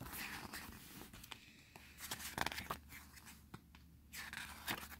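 Glossy pages of an album photobook being turned by hand: paper rustling and swishing in a few bursts, with some light clicks of paper and fingers against the pages.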